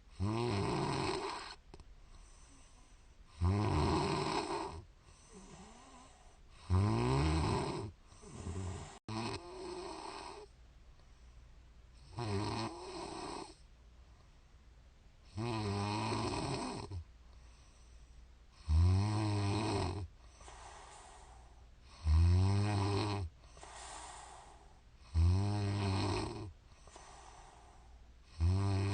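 A woman snoring in her sleep. A loud snore comes about every three seconds, with a softer breath between snores.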